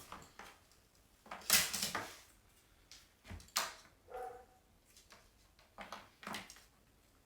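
Handling noise from an LED strip and scissors being moved about at a desk: a series of short rustles and knocks, the loudest about one and a half seconds in.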